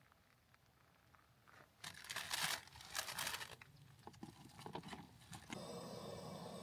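Footsteps crunching and scuffing on gritty sand and rock, a few seconds of irregular steps after a quiet start, followed by scattered light clicks. Near the end a faint steady hum comes in.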